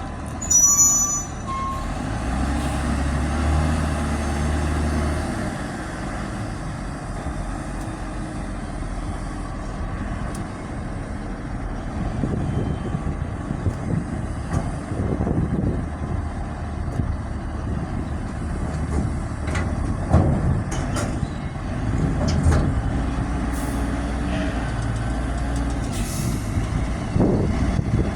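Heavy diesel vehicle engine running and changing speed as it manoeuvres, with reversing beeps near the start and a few sharp knocks later.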